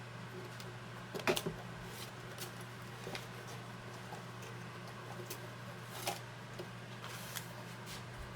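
Scattered light clicks and taps of hand work with a thin wire being threaded through a small hole in a mandolin's wooden top, a short flurry about a second in, over a steady low hum.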